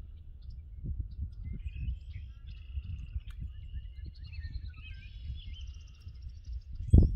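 Several songbirds chirping and trilling over the soft, irregular low thuds of footsteps on grass. Just before the end the low thudding suddenly gets much louder.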